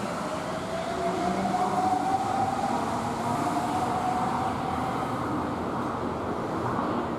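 Steady rumble of a moving vehicle heard from inside, with a whine that rises slowly in pitch over the first few seconds and then fades into the noise.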